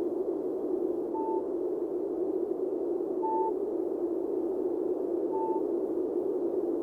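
A short electronic beep repeating about every two seconds, three times, over a steady low rushing noise.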